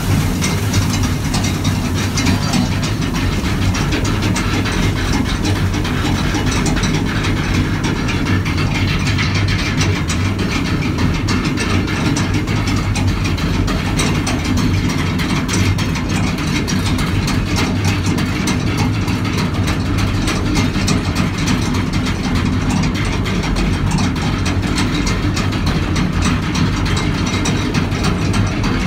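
Chain lift of a boat chute water ride hauling the boat up the lift hill: a steady, rapid clicking and clanking of chain and ratcheting mechanism over a constant low hum.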